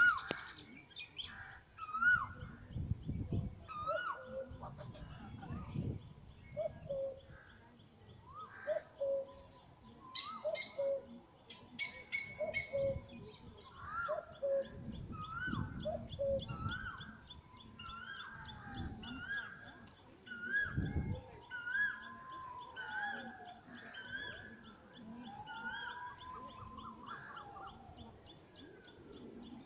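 Birds calling with short chirps that glide up and down, repeating about once a second, over a faint fast, even trill. Longer arching calls come in during the second half, and there are several low rumbles.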